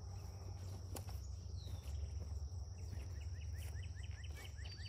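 Rural outdoor ambience: a steady high insect trill over a low rumble of wind on the microphone, with a single click about a second in and a bird's rapid run of short chirps in the last couple of seconds.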